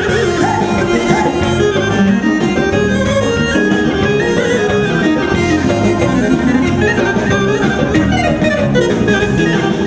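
Instrumental band music, a melody over a steady low beat, with no singing.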